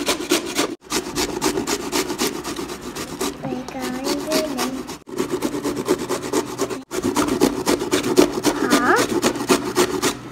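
Cauliflower and broccoli being grated on a handheld flat grater: quick rasping strokes, several a second, one after another.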